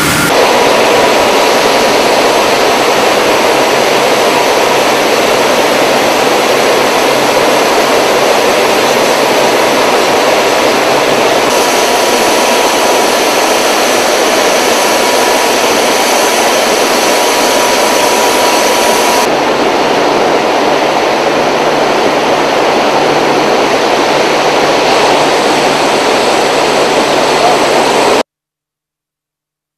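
Steady, loud machine roar of a hot wire rod rolling mill line running, with a faint steady whine. The character of the noise shifts slightly twice, then it cuts off abruptly near the end.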